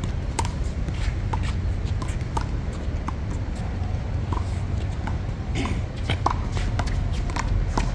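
Steady low outdoor city rumble, with scattered short, sharp ticks and scuffs from players moving on a concrete handball court.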